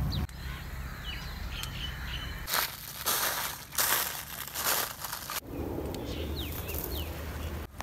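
Footsteps crunching through dry fallen leaves, a run of loud crunches in the middle. Birds chirp briefly before and after.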